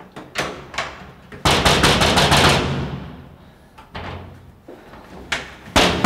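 A fist pounding on the frosted glass panel of a wooden double door, rattling it: a few single knocks, then a rapid flurry of blows about a second and a half in, and more bangs near the end.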